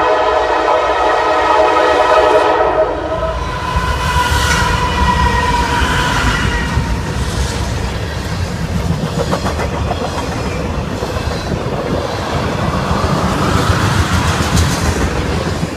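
Freight train's lead diesel locomotive blowing its multi-note air horn, loudest for about the first three seconds and fading out by about seven seconds. After that the locomotive rumbles and the freight cars' wheels click over the rail joints as the train passes.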